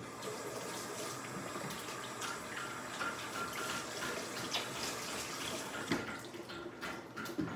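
Kitchen tap running while hands are washed under it: a steady rush of water that eases off near the end.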